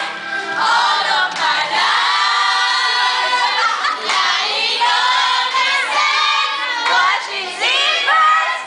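A crowd of girls singing together in unison, many voices at once.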